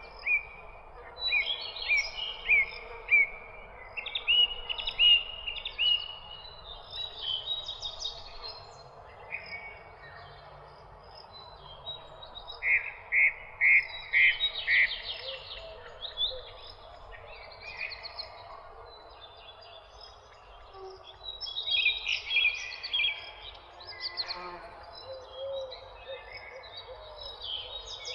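Several songbirds chirping and trilling, short repeated notes coming in bursts, over a steady background hiss of outdoor ambience.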